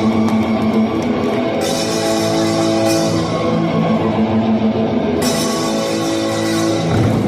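Korean pungmul percussion ensemble playing loudly: dense metallic clanging of gongs over drums and long ringing tones. The bright clatter drops back twice for a moment.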